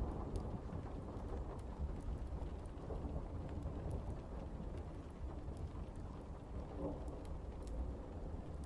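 Steady rain ambience: an even rush of rain over a continuous deep low rumble, with scattered sharp ticks.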